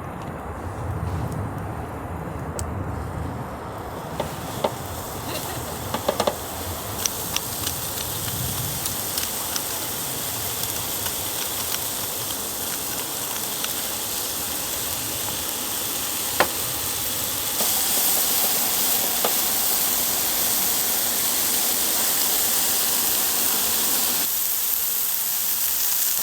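Food sizzling on a portable gas burner: a steady hiss with scattered light clicks. The hiss changes abruptly twice, about two-thirds of the way in and near the end.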